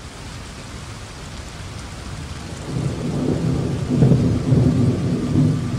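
Amiga demo soundtrack opening with a storm effect: a rain-like hiss fades in, and a low thunder-like rumble with a deep hum swells from about halfway in.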